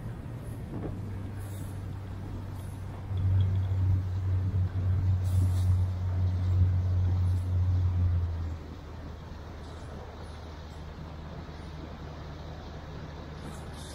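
Boat engine running at a steady low drone. It grows clearly louder about three seconds in, holds for about five seconds, then drops back, without changing pitch.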